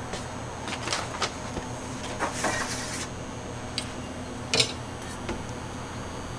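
A steel ruler being picked up and laid across a large sponge cake on parchment paper: a few light clicks and taps, a brief paper rustle about two seconds in, and a sharper click at about four and a half seconds, over a steady low hum of kitchen equipment.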